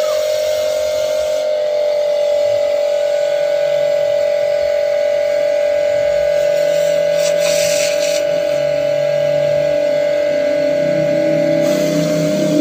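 Mollar HPW500 500-watt electric pressure washer running, with a steady high whine from its motor and pump over the hiss of the water jet from a brass spray nozzle. A brief louder hiss comes about seven seconds in.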